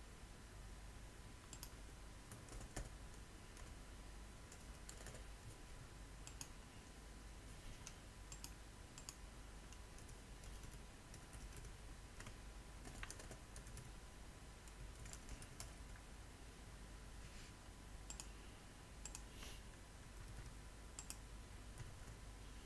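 Faint, irregular clicking of computer keyboard keys and mouse buttons as text is typed into a form, over a faint steady electrical hum.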